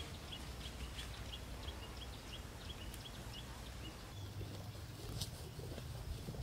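A small bird chirping, a short high call repeated about three times a second for the first few seconds, over a low outdoor rumble of wind. A single sharp click or knock comes about five seconds in.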